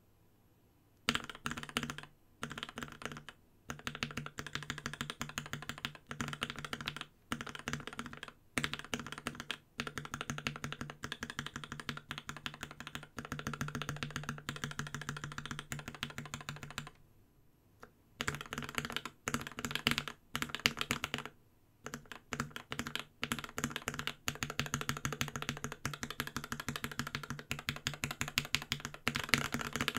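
Fast typing on a Space65 mechanical keyboard with lubed Tealios V2 linear switches, a carbon-fibre plate and an aluminium case, fitted with Cherry-profile keycaps. The keystrokes come in long rapid runs broken by short pauses, starting about a second in.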